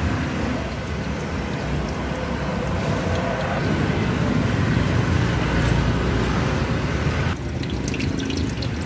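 Steady rushing noise of road traffic that drops away suddenly near the end, leaving a few light clicks and taps.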